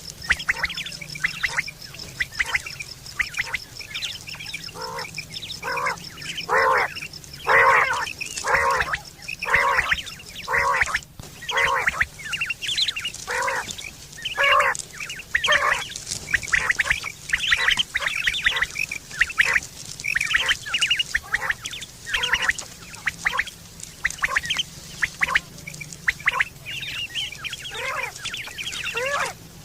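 Quail calling over and over: short repeated notes, about one to two a second, that continue throughout.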